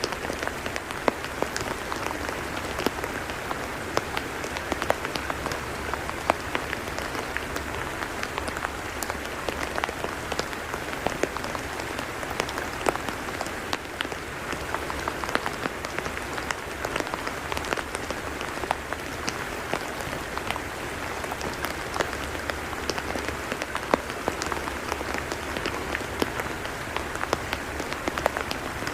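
Steady rain falling on a tidal mudflat: an even hiss dotted with many small, sharp drop ticks.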